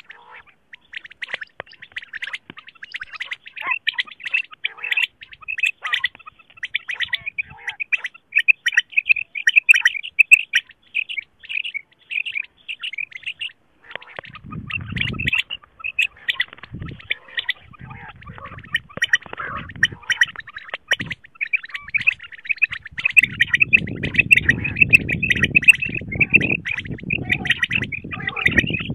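Recorded female common quail calls, used as a lure for quail hunting: rapid chirping that runs on with hardly a pause, breaking off briefly about halfway. A low background noise comes in just after the break and again over the last few seconds.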